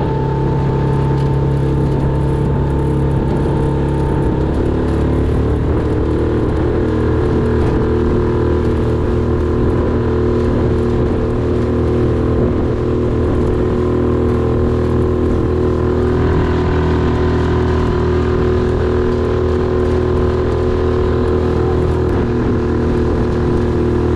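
Yamaha F6 single-cylinder four-stroke outboard running steadily under way, pushing a small aluminium canoe. It is held between low and half throttle during break-in, and its note shifts slightly about four seconds in and again around sixteen seconds. The engine sound resonates through the little canoe.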